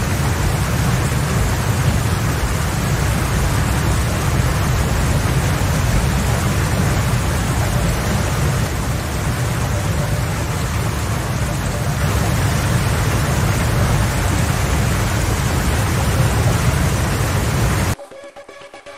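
Storm noise: a steady rush of wind and rain, with heavy low wind rumble on the microphone. It cuts off abruptly near the end, leaving a much quieter background.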